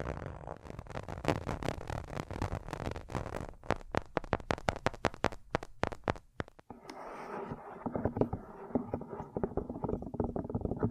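Close-miked ASMR trigger sounds: rapid taps and clicks that thin out into sharper, separate clicks, then change about seven seconds in to a denser, duller crackling.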